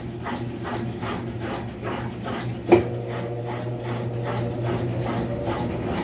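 Mabe Aqua top-load washing machine in its spin cycle: a steady motor hum with a fast, even pulsing as the tub turns, and one sharp knock about halfway through. The tub swings and knocks toward the sides, a sign of worn suspension dampers rather than bad bearings.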